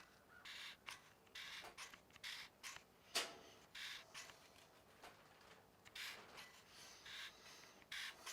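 Faint clicks and scraping from a small ratchet bar clamp's opened trigger mechanism as it is squeezed and the bar advances, with one sharper click about three seconds in.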